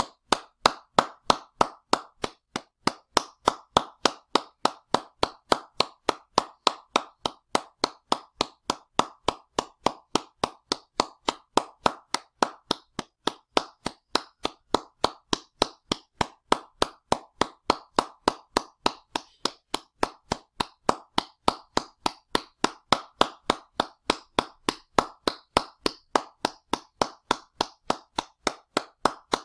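Hands clapping in a steady, even rhythm, about three sharp claps a second.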